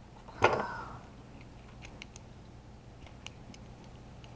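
A single metallic clank with a brief ring about half a second in: a steel adjustable wrench picked up from the workbench among other tools. A few faint small clicks follow as it is handled against the hot end's heater block.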